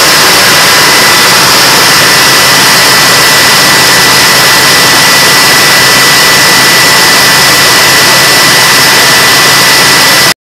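Siamese pair of Detroit Diesel 6-71 two-stroke inline-six diesels on a generator set, running loud and steady with a high whine over the engine noise, during a cool-down run. The sound breaks off abruptly at the very end.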